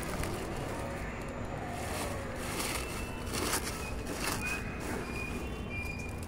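Dry leaves crackling and rustling as they are handled and pressed down into a plant pot, in several brief crunches.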